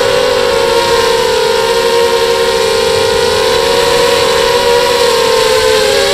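FPV racing quadcopter's motors and propellers whining steadily, several close pitches wavering slightly up and down with the throttle.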